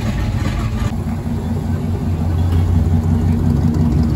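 Low, steady rumble of a lowered late-1950s station wagon's engine through its side exhaust pipes as it rolls slowly past at low revs, growing louder about two seconds in.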